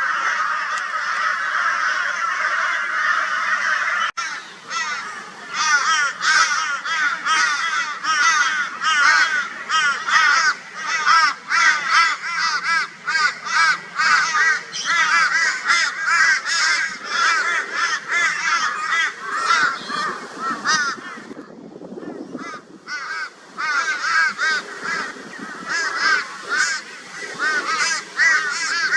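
A flock of crows mobbing a barn owl with loud, raucous, rapidly repeated overlapping caws. The calls thin out briefly about three quarters of the way through, then pick up again.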